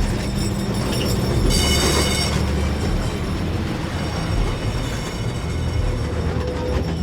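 MTV-82 tram running past with a steady low drone. About a second and a half in, its wheels give a brief high squeal, under a second long.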